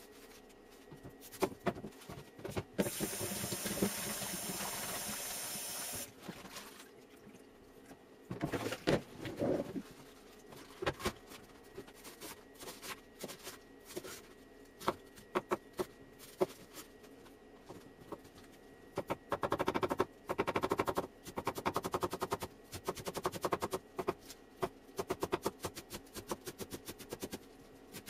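Kitchen work sounds: a steady rush of water for about three seconds near the start, then scattered clicks and knocks, and a busier run of clattering and scraping toward the end.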